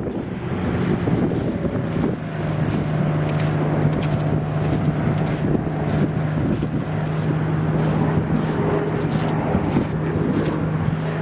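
A steady low engine-like hum sets in about two seconds in and holds, over a rumbling background.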